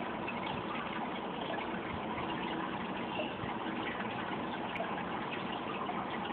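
Water in a home aquarium running and splashing steadily, the constant rush of the tank's circulating flow.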